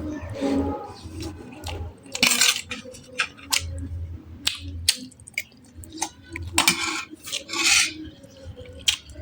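Close-up mukbang eating sounds: cutlery clicking and clinking against a dish, mixed with chewing and mouth noises. There are three louder noisy bursts, about two, six and a half, and seven and a half seconds in.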